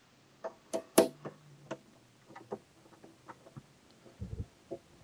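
Irregular light clicks and taps of Allen bolts and an Allen key being worked against a motorcycle windscreen and its mount, with a louder sharp knock about a second in and a dull low thump near the end.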